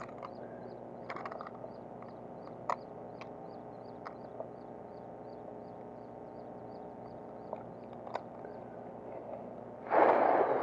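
Quiet outdoor background with a small high chirp repeating about four times a second and a few faint clicks. About ten seconds in comes a loud, brief rustling burst.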